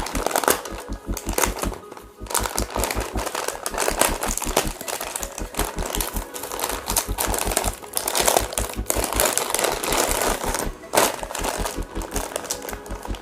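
Clicking of small metal spare parts and rustling of plastic packaging as loose spares are handled, over background music with a steady low beat.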